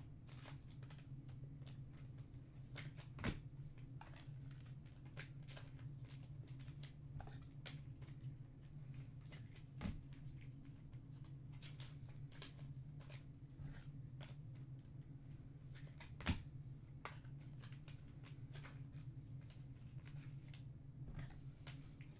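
Trading cards being handled and sorted on a table: faint, irregular light clicks and taps, with three louder knocks spread through, over a steady low hum.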